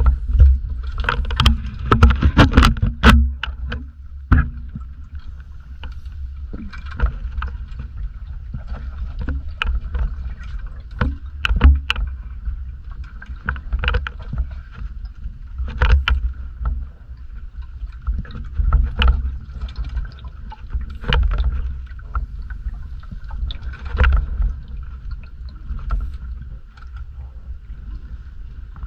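Underwater ambience picked up by a diving camera. A low steady rumble of water movement runs throughout, with a faint steady hum. Scattered sharp clicks and knocks come thickest in the first few seconds.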